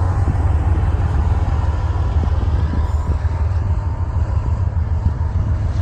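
A loaded oil train rolling past, its wheels on the rails making a loud, steady low rumble that eases slightly near the end.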